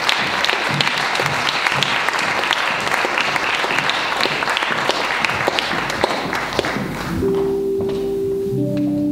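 Audience applauding, a dense patter of many hands clapping that dies away about six to seven seconds in. Near the end a few steady held musical notes begin.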